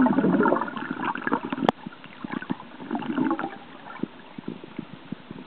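Muffled underwater gurgling and bubbling, heard through a camera held underwater as air bubbles rise from a swimmer, loudest in the first second and a half. A sharp click about 1.7 s in.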